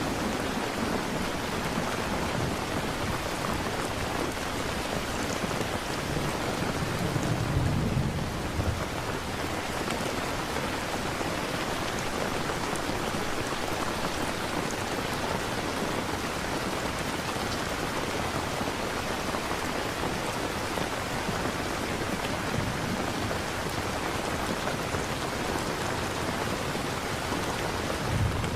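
Steady rain falling, an even hiss, with low rumbles of thunder about seven seconds in and again near the end.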